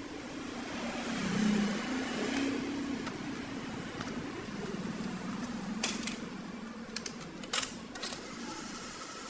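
A few short, sharp clicks in the second half over a steady low hum.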